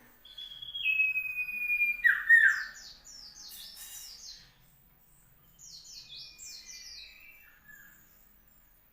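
Common iora (cipow) singing. A long whistled note steps down once in pitch and is followed by two quick falling notes. Then come two runs of rapid, high, falling notes about a second apart.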